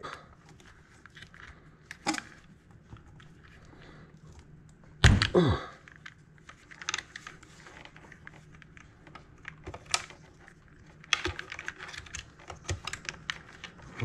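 Small clicks and rustling from hands working the wiring and parts of a garbage disposal, with a burst of quick clicks near the end. A louder short sound falls in pitch about five seconds in.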